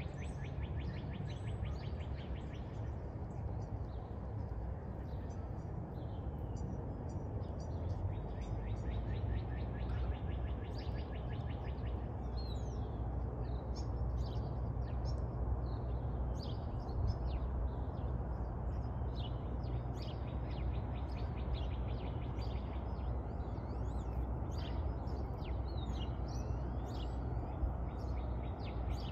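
Several songbirds chirping and singing in short calls and whistled glides, with a rapid dry trill near the start and another about eight seconds in. A steady low rumble runs underneath.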